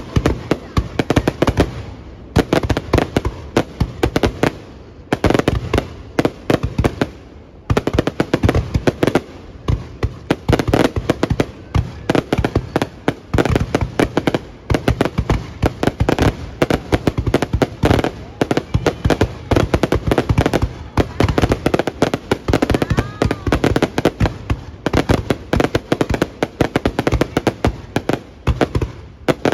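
Aerial fireworks display: a dense, continuous volley of sharp bangs and crackles, with brief lulls in the first few seconds before the barrage runs on without pause.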